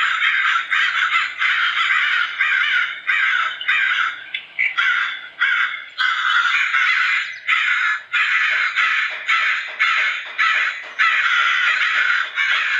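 Crows cawing over and over, the caws following one another closely with only short breaks.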